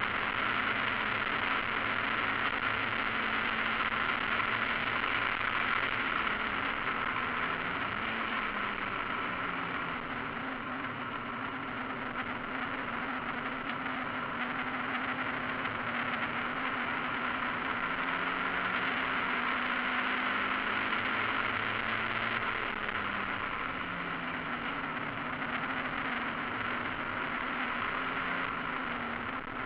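Mazda MX-5 race car's four-cylinder engine heard from inside the cockpit at racing speed, its note rising and falling repeatedly through gear changes and corners, under a steady hiss of wind and road noise.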